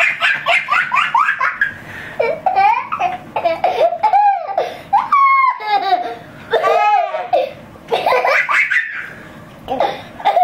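Baby girl laughing hard in repeated high-pitched bouts and squeals with short breaths between, some ending in a long falling call; her parent puts it down to the cold of the ice cream she is biting.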